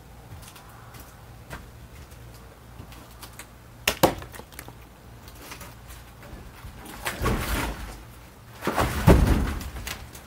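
Large log rounds being shifted on a trailer floor: a sharp knock about four seconds in, then two longer stretches of heavy thudding and scraping near the end, the second the loudest.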